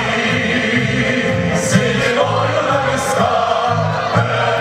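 Male military choir singing held notes in harmony over band accompaniment, carried through outdoor stage speakers.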